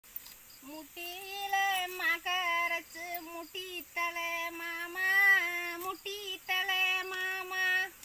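A woman's voice singing a Tamil kummi folk song unaccompanied, in held, wavering notes with short breaks between phrases.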